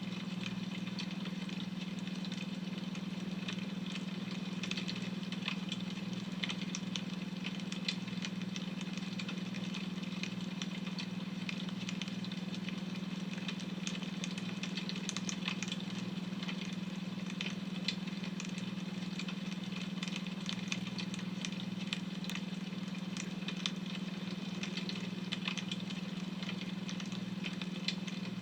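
Wood fire crackling, with small pops scattered throughout, over a steady low hum of a beta-wave brainwave tone.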